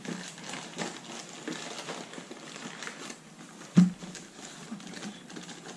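Light rustling and small clicks from a cardboard cornstarch box and plastic measuring cup being handled while a quarter cup of cornstarch is scooped out, with one sharp knock a little before four seconds in.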